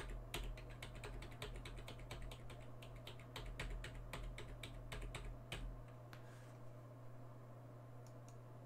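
Computer keyboard being typed on: a quick run of light key clicks that thins out after about six seconds.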